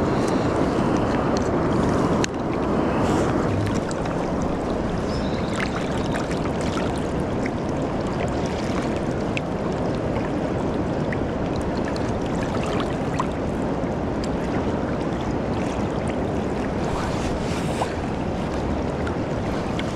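Steady rush of river water mixed with wind noise, with a few faint clicks.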